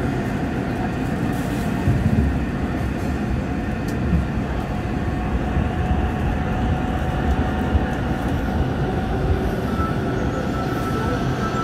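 Incheon Metro Line 1 train, an Alstom IGBT-inverter set, running at speed through a tunnel, heard from inside the car: a steady rumble of wheels on rail with a faint steady whine over it. A few sharper knocks come through, around 2, 4 and 8 seconds in.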